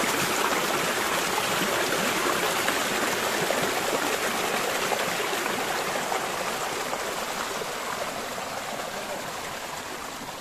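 Running water of a stream, a steady even noise that cuts in suddenly and fades gradually through the second half.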